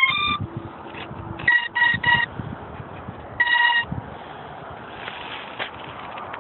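Quadcopter's motor speed controllers beeping a startup sequence through the motors: two quick tones of different pitch, three equal short beeps, then one longer beep, signalling the battery has been connected and the controllers are arming.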